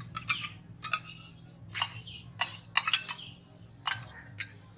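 Steel utensils clinking: a steel cup and metal spatula knock against a stainless-steel bowl as curd is tipped out onto marinated meat, with a string of sharp, irregular clinks.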